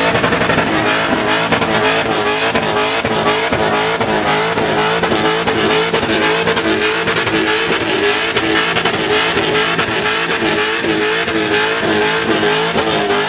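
Supercharged Holden Commodore ute held at high revs in a burnout, its spinning rear tyres screaming. The engine note wavers up and down about twice a second.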